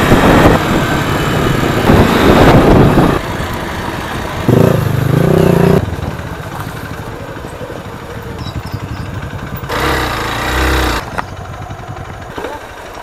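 Hero XPulse 200 single-cylinder motorcycle engine running on a rough dirt trail, with wind rushing over the helmet-mounted microphone. The sound is loudest over the first few seconds, with a short loud stretch of steady engine tone about five seconds in, and grows quieter toward the end.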